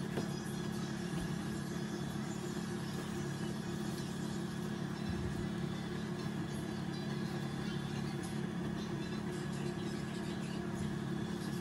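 Steady mechanical hum of a running motor, even in level throughout, with a few faint soft clicks over it.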